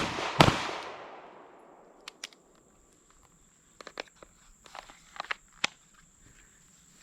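Two 9mm pistol shots about half a second apart, the first at the very start, echoing and dying away over about a second, followed by a few scattered light clicks and knocks.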